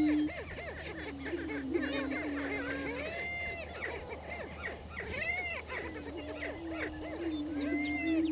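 Greater prairie chickens booming on a lek: males give long low steady moans, one starting about a second in and another past the middle, under many short overlapping higher calls from other birds. This is the males' territorial breeding display.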